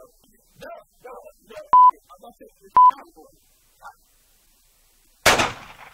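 Two short, loud, steady beeps about a second apart over faint talk, then near the end a single loud handgun shot with a short ringing tail.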